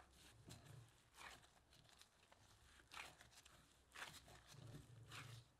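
Gloved hands pressing and kneading crumbly cornmeal dough together in a glass bowl: faint, brief rubbing strokes, about five of them, each with a dull low thud.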